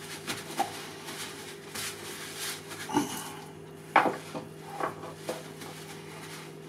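Paper towel patting and rubbing over raw pork spare ribs on a wooden chopping board to dry them: soft rustling with a few light knocks against the board, the sharpest about four seconds in.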